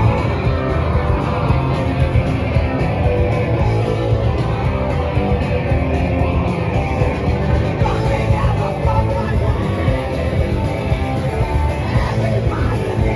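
Live punk rock band playing loud: electric guitar, bass and drums with a singer's vocals.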